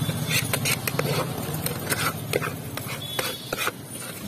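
Metal knife knocking and scraping against the inside of an aluminium can as wood apple (bel) pulp is stirred and mashed, in quick irregular clacks, over a low steady hum that fades about halfway through.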